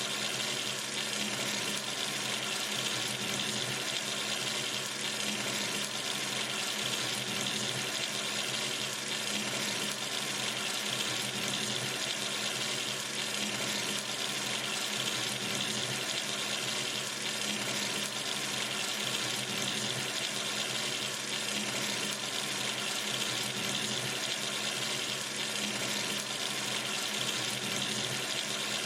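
Sink tap running steadily, water pouring into the basin with an even, unchanging hiss.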